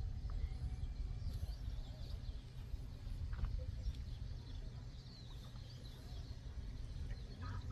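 Wind buffeting the microphone as a steady low rumble, with faint, short, high bird chirps scattered through. Near the end a louder bird call begins.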